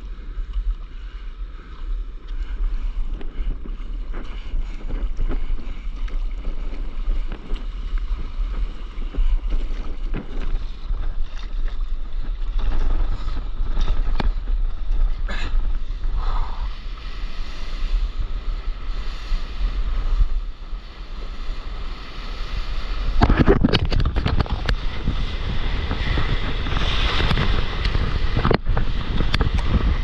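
Wind buffeting the microphone over water sloshing around a stand-up paddleboard at sea. About three quarters of the way through, a much louder rush of breaking whitewater takes over.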